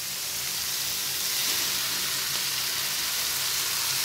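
Chopped vegetables (carrot, capsicum, peas, onion) sizzling in hot oil in a metal pan: a steady frying hiss.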